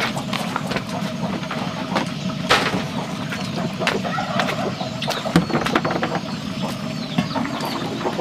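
Wood fire crackling and popping in an open hearth under a large pot, over a steady low rumble, with a few sharper knocks and clatters as the firewood is stirred with a stick.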